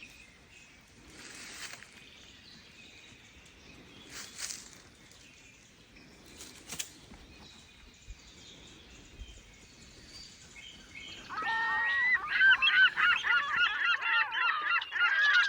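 Birds calling: sparse, faint chirps at first, then about eleven seconds in a loud, dense chatter of rapid, wavering calls that lasts to the end.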